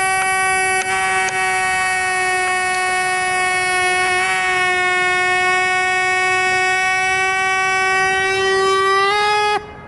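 Pneumatic air scribe running with a steady high-pitched whine while cleaning rock matrix from a fossil tooth. Its pitch shifts slightly and rises briefly just before it cuts off near the end.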